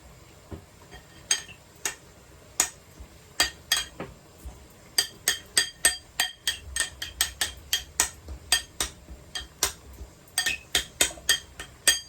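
Cutlery clinking and tapping against dishes in a string of sharp knocks, sparse at first, then coming several a second from about five seconds in.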